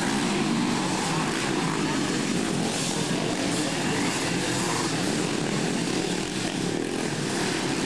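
Engines of several racing three-wheelers running hard around the motocross track, blending into a steady drone.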